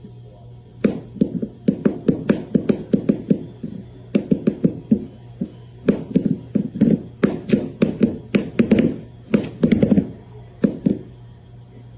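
Quick runs of short taps or knocks, several a second, in clusters that start about a second in and stop near the end, over a steady low hum.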